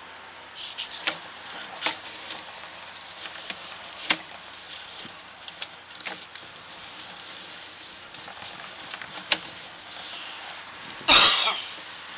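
Scattered clicks and knocks from a sewer inspection camera's push cable and reel as the camera is pulled back through the line, over a steady hiss. A loud noise of about half a second comes near the end.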